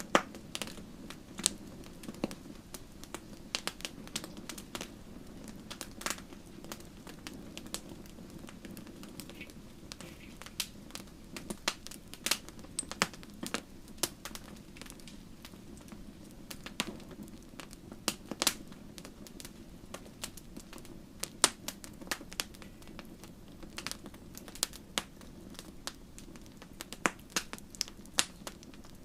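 Wood bonfire burning: irregular sharp crackles and pops over a steady low rush of flame.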